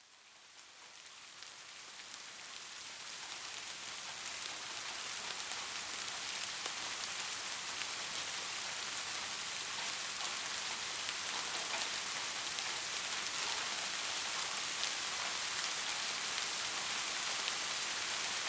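Steady rain, an even hiss peppered with fine droplet ticks, fading in over the first several seconds and then holding level, played as white noise for sleep.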